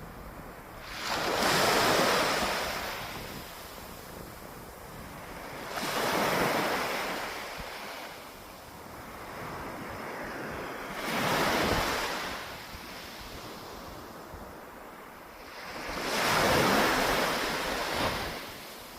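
Sea waves breaking on a beach, four surges of surf each swelling and fading about five seconds apart, over a steady rush of water.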